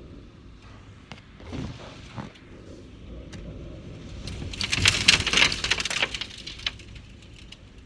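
Wind storm: a steady rush of noise with two short gusts, then a loud, crackling rush lasting about two seconds, starting a little past four seconds in, before it settles again.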